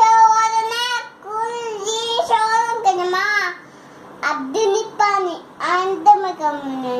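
A two-year-old girl's high-pitched voice chanting in long, drawn-out, sing-song phrases, with a short pause about halfway through.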